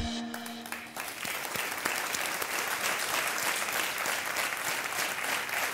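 Studio audience applauding: dense, steady clapping that swells about a second in, as a closing music track fades out underneath.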